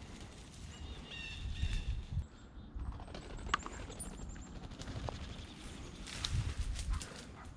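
Footsteps crunching through dry grass and brush, with a small songbird chirping a quick series of high notes about a second in. A low rushing burst comes near the end.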